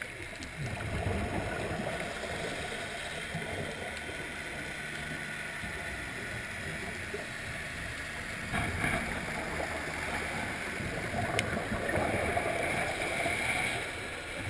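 Muffled underwater noise picked up inside a diving camera housing: a steady hiss and rumble that swells into gurgling bubble noise three times, typical of a scuba diver's exhaled bubbles from the regulator.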